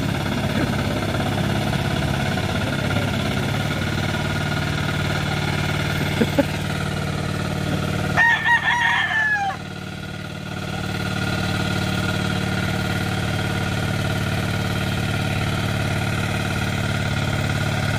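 Small engine of a turtle-type (pagong) hand tiller running steadily. A rooster crows about eight seconds in, and the engine sound dips briefly just after before coming back up.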